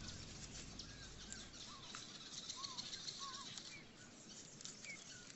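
Faint bush ambience with scattered bird calls: several short whistled notes that dip and rise, and a high steady buzz through the middle.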